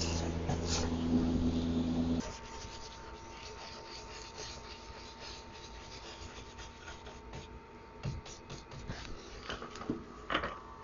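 A steady low hum cuts off abruptly about two seconds in, leaving faint rubbing and scratching with scattered light clicks from hand work on the wooden buffet during painting.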